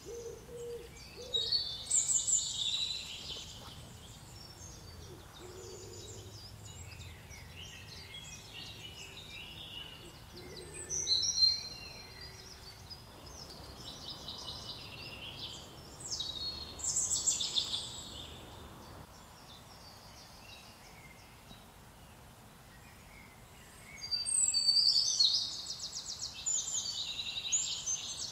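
Small garden songbirds singing in short high-pitched phrases every few seconds, the last one a rapid trill, over a faint outdoor hiss. In the first half a low hooting call sounds now and then in the background.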